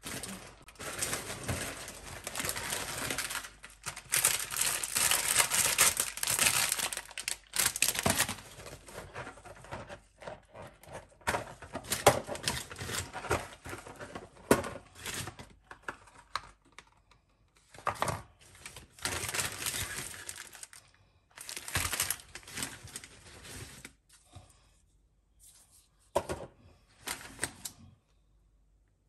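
Rustling and crinkling of a fabric shopping bag and plastic-wrapped groceries as they are lifted out and set down on a kitchen counter, coming in bursts with short pauses and a few light knocks.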